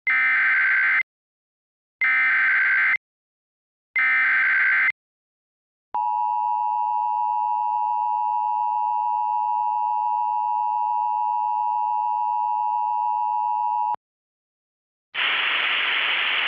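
Emergency Alert System tones: three one-second bursts of SAME header data about a second apart, encoding a Dust Storm Warning. Then the two-tone attention signal (853 and 960 Hz) holds steady for about eight seconds and cuts off sharply. About a second before the end, a hiss of radio-like static begins.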